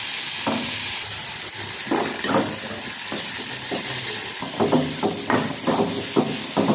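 Chopped onions sizzling in hot oil in a metal kadai while a metal ladle stirs and scrapes them against the pan, the scraping strokes coming several a second in the second half: onions being sautéed toward golden.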